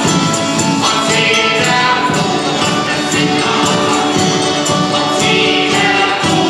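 Several voices singing a German carnival song together, with a tambourine jingling in time.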